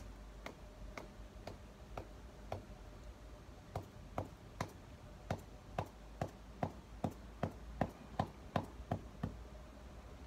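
Hand hoe striking garden soil in a steady rhythm: sharp strikes about two a second, growing louder and a little quicker from about four seconds in, then stopping shortly before the end.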